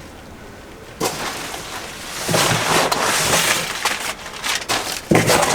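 Plastic packaging rustling and crinkling as a clothing item is unwrapped, starting about a second in and loudest in the middle, with a sharp crackle near the end.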